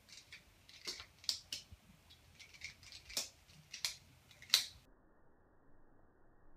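Metal handles of a SOG PowerLock multitool clacking as it is flipped open and shut like a balisong (butterfly knife): a string of sharp, uneven clicks and clacks, the loudest near the end of the flipping.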